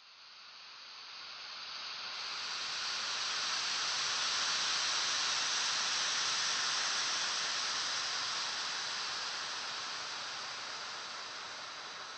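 A steady hiss of noise, like rushing air, fading in, swelling to its loudest about halfway through, then slowly easing off: an atmospheric sound-design effect under the film's opening titles.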